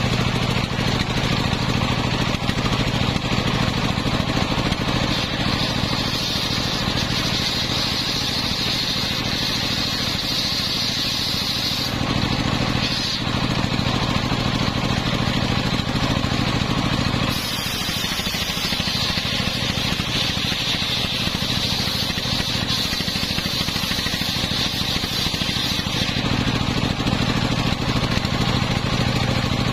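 Homemade belt-driven circular saw ripping a coconut-palm log lengthwise, its drive engine running steadily under a constant load. The blade's high cutting whine swells through two long cuts, one from about six seconds in and another from about eighteen seconds in, easing off in between.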